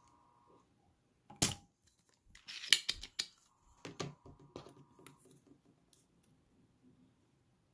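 Spring-loaded desoldering pump firing with a sharp snap about a second and a half in, pulling molten solder from a motherboard pin. About a second later comes a louder cluster of clicks and scraping, then a few lighter clicks.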